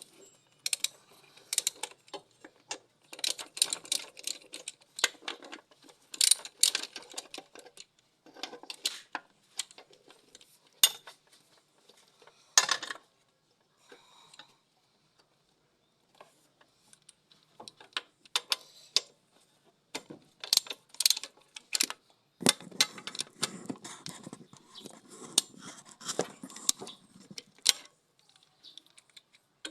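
Metal hand tools and small steel parts clicking and clinking in irregular bursts with short quiet gaps, as work is done on the EGR valve of a 2008 Nissan Navara.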